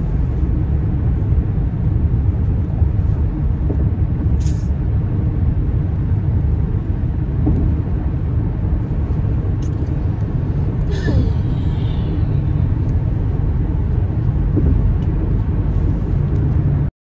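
Steady low rumble typical of a moving vehicle, with a few brief clicks or rustles; it cuts off abruptly near the end.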